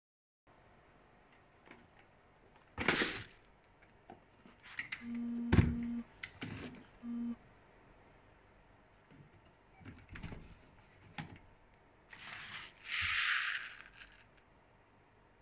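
Handling noises of an airsoft M249 and its plastic box magazine: scattered clicks and plastic knocks as the box is fitted and removed. Twice, about five and seven seconds in, a short steady electric hum, the box magazine's geared feed motor running briefly, and near the end a longer rasping scrape of the plastic box being handled.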